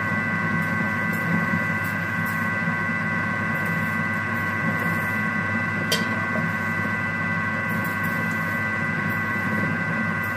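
Thermomix food processor's motor running steadily at speed 4, mixing a thick cake batter of flour, butter, yogurt, eggs and sugar, with one short click about six seconds in.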